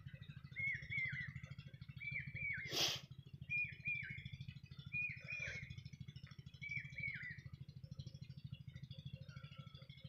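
Small bird calling in short bursts of two or three quick down-slurred chirps, about five bursts over seven seconds, over a faint low, fast-pulsing hum. One sharp click sounds about three seconds in.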